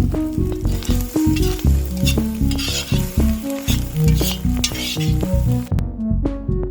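Egg and mussel omelette sizzling in a frying pan, under background music with a steady beat. The sizzle cuts off abruptly near the end, leaving only the music.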